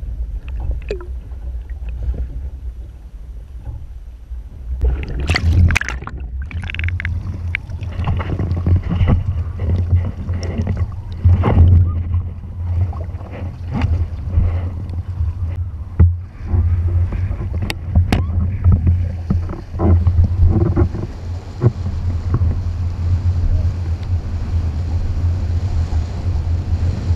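Wind buffeting a GoPro on a windsurf mast as the board sails, a heavy low rumble surging and easing irregularly, with water rushing and splashing against the board and camera housing.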